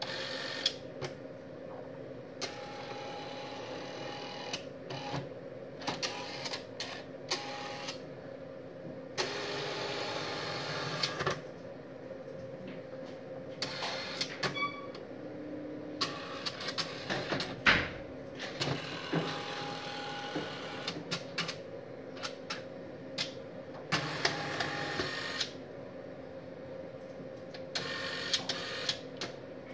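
StorageTek SL48 tape library robot moving its hand along the rails and handling an LTO-3 tape cartridge: several stretches of steady motor whir, each a second or two long, broken by sharp clicks and clunks, the loudest clunk about two-thirds of the way through. A steady hum runs underneath.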